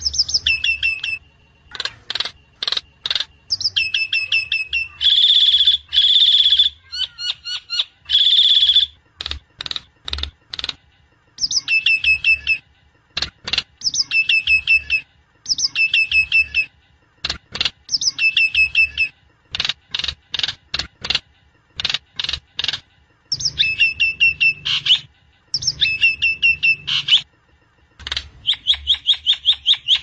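Myna (sáo đen) calling over and over: rapid chattering runs of short notes and trills with brief pauses between them, and a few longer harsh calls.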